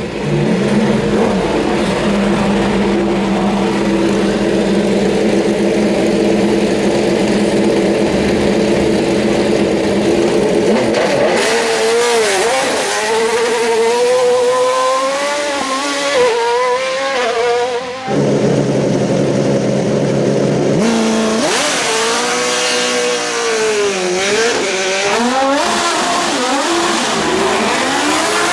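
Racing car engine at high revs, holding a steady note for about the first ten seconds, then rising and dipping in pitch through gear changes under hard acceleration. The sound changes abruptly about 18 seconds in, to a steady note and then more rising and falling revs.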